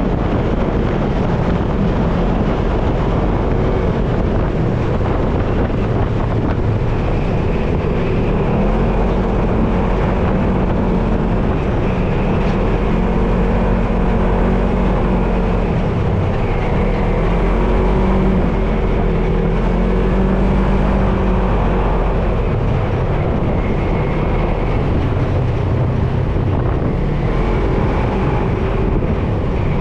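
Off-road vehicle engine running, its revs rising and falling.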